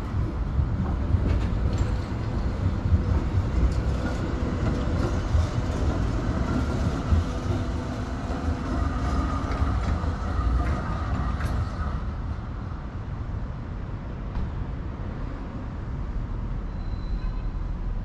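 Electric tram running on street tracks: a low rumble with wheel-on-rail clicks and a faint motor whine, easing off after about twelve seconds.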